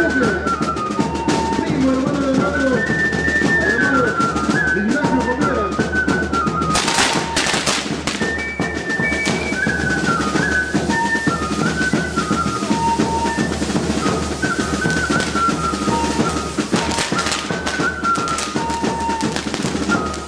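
Andean festival band music, a wind-instrument melody over steady drumming. Two brief bursts of hissing from the burning castillo fireworks tower come through, about seven and seventeen seconds in.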